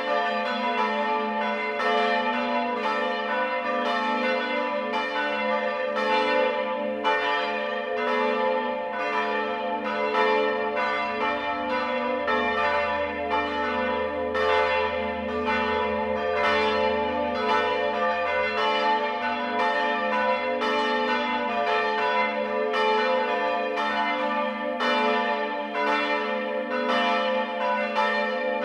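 A peal of church bells swinging in a tower, their strokes overlapping about two a second, each tone ringing on under the next.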